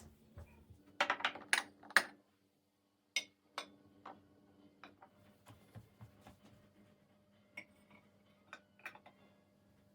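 Light clicks and knocks of small objects being handled: a quick run of five or so about a second in, then scattered single clicks over a faint steady hum.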